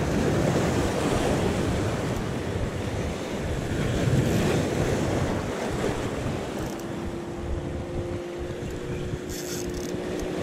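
Small sea waves washing and breaking over shoreline rocks, with wind buffeting the microphone. A faint steady hum comes in about two-thirds of the way through.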